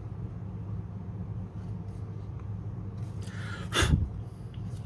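Steady low hum in a small room, with one short, loud breath close to the microphone about three and a half seconds in.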